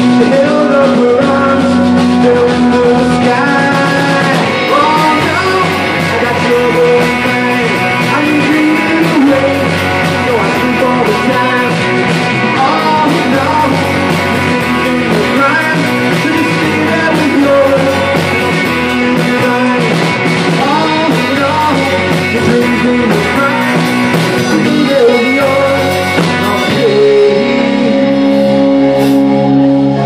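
Live rock band playing: electric guitar, bass guitar, keyboard and drum kit, with a man singing lead. Near the end the band settles into steadier held notes.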